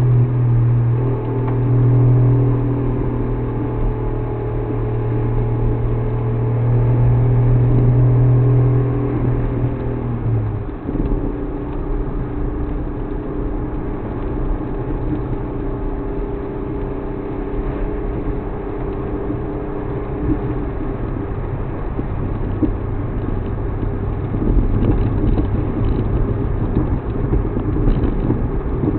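Suzuki Alto Works HA36S car running, a loud steady engine drone that drops away about ten seconds in, leaving a lower rumble.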